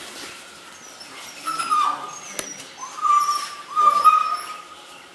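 Bully kutta puppy whining during rough play-wrestling with another puppy: three high-pitched whines, about a second and a half in, then two louder ones about three and four seconds in.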